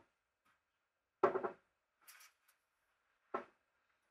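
Two sharp wooden knocks, about two seconds apart, as a timber plank is handled against the underside of a plywood boat hull, the first the louder.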